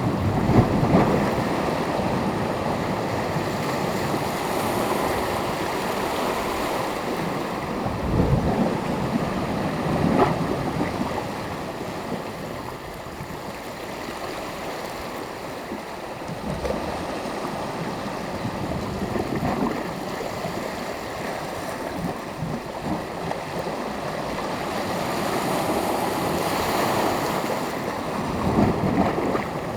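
Small sea waves washing onto a beach: a steady hiss of surf with several louder breaks and wash-ups, the clearest about a second in, twice around eight to ten seconds, and near the end. Light wind buffets the microphone.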